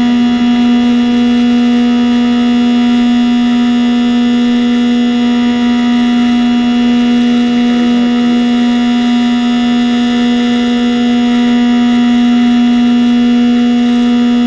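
Skywalker X8 drone's electric pusher motor and propeller running at a steady cruise, heard close up from inside the airframe as a loud, unchanging buzzing tone.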